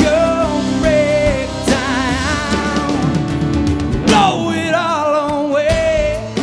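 Live rock band playing: a singer holds long, wavering notes over strummed acoustic guitar, electric guitar and drums, sliding down into a long held note about four seconds in.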